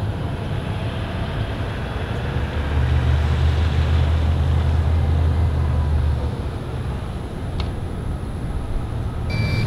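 Pickup truck engine pulling a loaded boat trailer up a launch ramp: a steady low rumble that swells to a deep drone from about three to six seconds in, then eases off. Water streams off the boat hull and trailer underneath.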